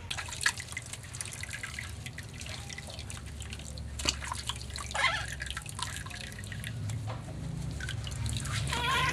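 Water dripping and splashing in a small plastic tub, in irregular drips and small splashes, as a hand scoops soapy bath water and washes a wet baby monkey.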